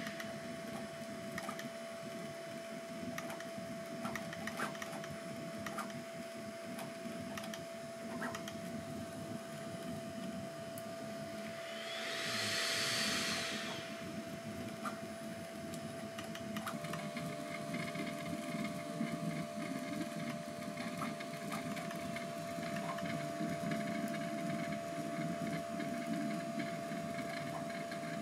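Bambu Lab A1 Mini 3D printer running a print, with a steady whine and a low, busy rattle of the moving toolhead and bed. About twelve seconds in there is a brief whir that rises and then falls in pitch. The movement sound grows denser from about two-thirds of the way through.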